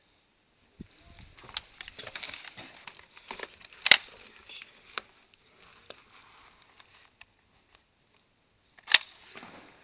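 Crunching and crackling footsteps and rustling over dry debris, with many small clicks and two sharp loud cracks, one about four seconds in and one near the end.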